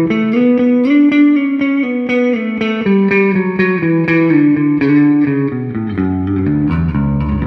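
Squier Bass VI six-string bass played with a pick through all three pickups with the strangle switch on, which scoops out the low end, boosted by a Klon overdrive model: a melodic line of picked, ringing notes.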